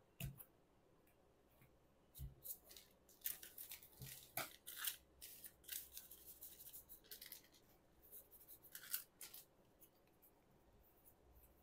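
Faint, scattered crinkles and clicks of foil booster packs and trading cards being handled.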